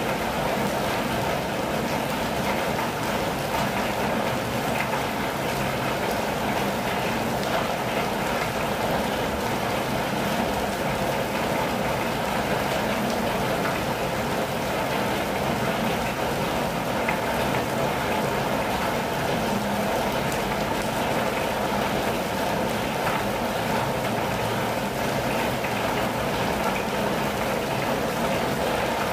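Steady rain falling on a campervan, heard from inside: an even, unbroken hiss of rain.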